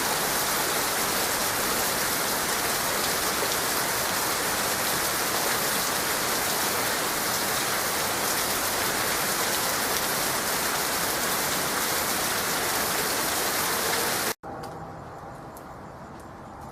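Heavy rain falling steadily, a dense even hiss. About fourteen seconds in it cuts off abruptly to a much quieter stretch with faint scattered ticks.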